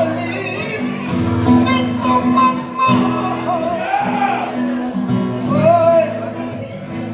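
Live acoustic music: a strummed acoustic guitar with a man's voice singing.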